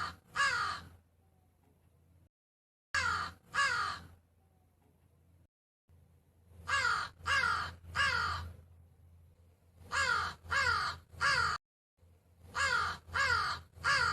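A crow cawing in short series of two to four harsh caws, each call falling in pitch, with pauses between series.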